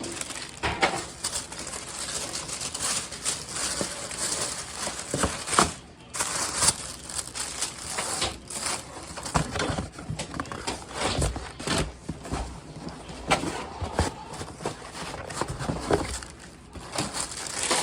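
Paper and cardboard packaging rustling and crinkling, with scattered short knocks, as shoe boxes are opened and handled.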